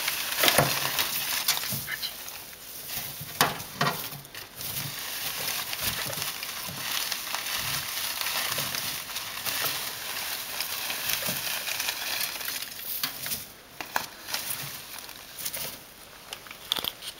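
Dry hay rustling and crackling as guinea pigs move and root about in it, with scattered sharper crackles.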